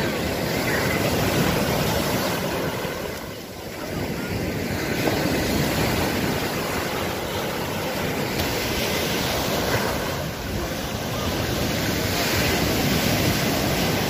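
Sea surf breaking and washing up a sandy beach, a steady rush that swells and eases as each wave comes in, dipping briefly twice.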